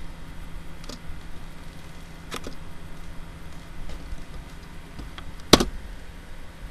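A few sharp computer mouse clicks over a steady low hum, the loudest about five and a half seconds in, as a colour is picked from a menu.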